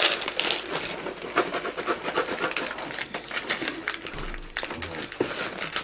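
Plastic snack wrapper crinkling as it is twisted and pulled at, then cut open with scissors, a busy run of small crackles and clicks.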